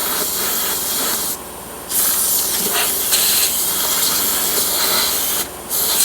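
A high-pressure nozzle blasting a loud, steady hiss into a Jeep frame to clear out packed dirt. It cuts off briefly twice, about a second and a half in and again near the end.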